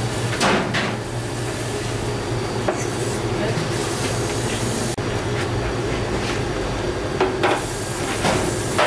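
Steady machine noise, a low hum with hiss, with a few sharp knocks scattered through it.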